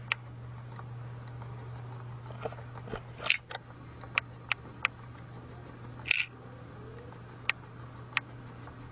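Scattered sharp clicks and taps, about ten spread unevenly, over a steady low hum, the loudest click about six seconds in.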